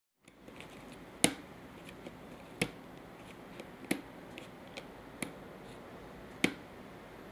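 A cat's claws picking at the cut edge of a cardboard box, giving sharp clicks about every second and a half, with fainter ticks between them.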